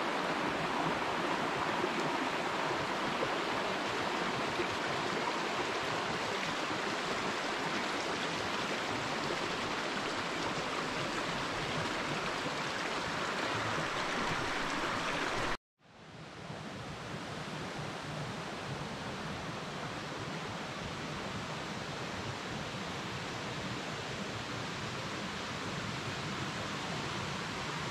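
Steady rushing outdoor noise with no distinct events. It cuts out for a moment about halfway through and comes back quieter.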